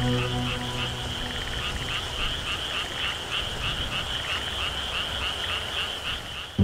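A chorus of frogs calling, many short pulsed croaks overlapping in a rapid, repeating pattern.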